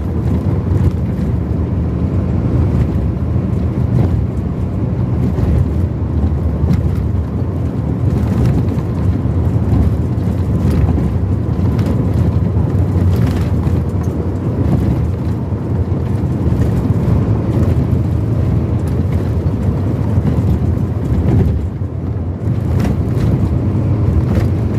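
A vehicle driving along a highway: steady road and engine rumble with wind buffeting the microphone.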